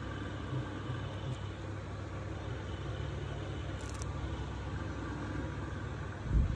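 Steady low mechanical hum, with a brief faint high click about four seconds in and a low thump near the end.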